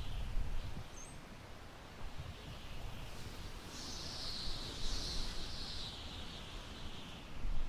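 Wind blowing through tall grass: a steady rustling hiss that swells in a gust about halfway through, over a low buffeting rumble of wind on the microphone.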